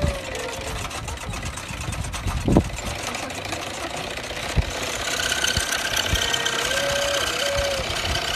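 An old cast-iron scroll saw cutting wood, its blade and mechanism clattering in a fast, even rhythm, over the steady running of a hit-and-miss engine. A single loud knock comes about two and a half seconds in.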